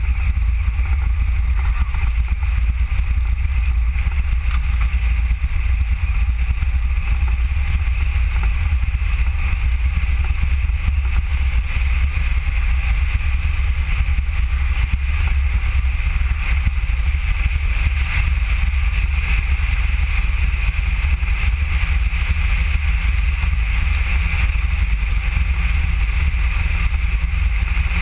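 Steady wind rush on the microphone and road rumble from a Mango velomobile riding at speed, heavy and deep, with a steady higher hiss over it.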